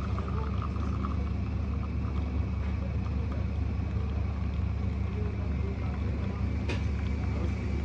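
Spirit espresso machine running with a steady low hum while it dispenses during calibration, with one sharp click near the end.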